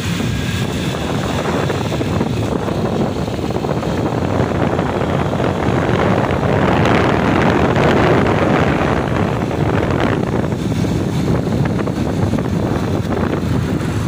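Wind rushing over the microphone on a moving motorcycle, mixed with the motorcycle's engine and road noise. The rush grows louder toward the middle and then eases off a little.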